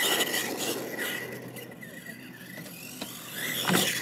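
Radio-controlled monster truck driving on dirt, its motor whining and its tyres scraping. The whine climbs as the truck accelerates toward a ramp, and a louder scrape comes near the end as it hits the ramp and launches.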